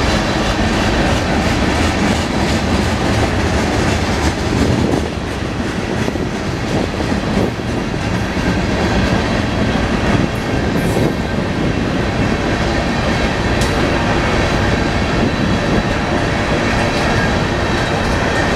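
Freight cars of a Union Pacific manifest train rolling past, tank cars and then covered hoppers, their wheels making a steady, loud rumble on the rails.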